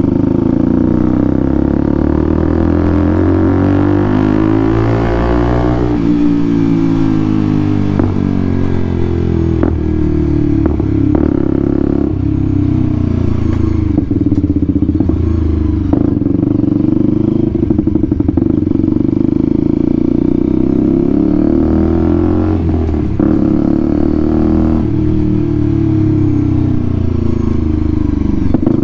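A 125cc motorcycle engine running through a newly fitted aftermarket exhaust while riding. The note climbs and drops several times with the throttle and gear changes. It is loud, a bit excessive.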